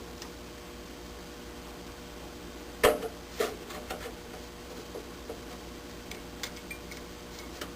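Handling noise from furnace parts: a sharp knock about three seconds in, then a few lighter clicks and taps, over a steady hum with a faint constant tone.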